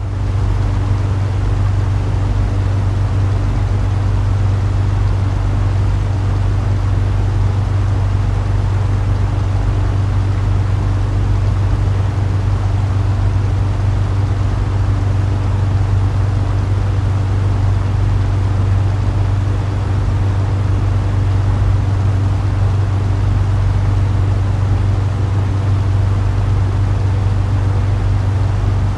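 Propeller airplane engine running steadily in flight, a continuous low drone with a strong low hum and a hiss above it.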